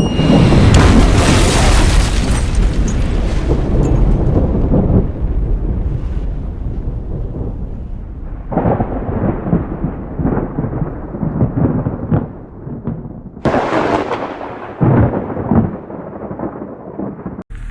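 Sound-effect plane crash: a loud explosion-like crash with heavy rumbling for several seconds. Then comes a string of shorter rumbling bursts, another loud burst, and an abrupt cut-off near the end.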